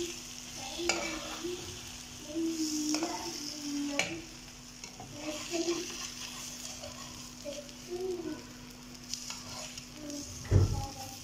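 Egg and tomato frying in a nonstick pan with a steady sizzle, while a spatula stirs and breaks up the egg, scraping and tapping against the pan a few times. A low thump comes near the end.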